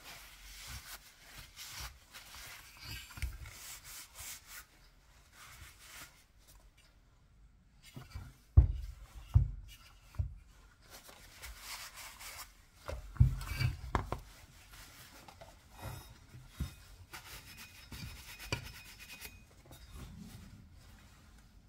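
Cloth rag rubbing over an IMZ Ural M67 motorcycle crankshaft, wiping off oily valve-grinding compound after a lapping pass of the flywheel taper. Further on come several heavy, dull knocks as the steel crankshaft and flywheel are shifted and set down on the workbench.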